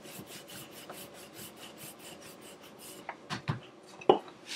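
Wooden rolling pin rolling naan dough on a floured wooden board: quick back-and-forth scraping strokes, about four a second, that stop about three seconds in. A few knocks follow near the end.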